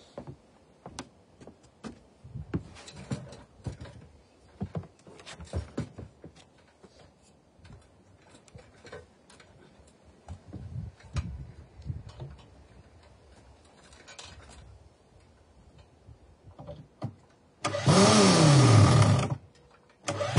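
Knocks and clicks from an aluminium stepladder being climbed, then near the end a cordless drill driving a screw into a timber post: a loud run of about two seconds with the motor's pitch falling as the screw bites, and a second run starting right at the end.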